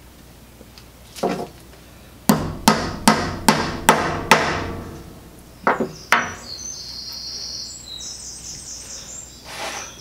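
Hammer blows on metal and wood: one knock, then six sharp ringing strikes at about two and a half a second, then two more. After that comes a fainter high whine that shifts in pitch.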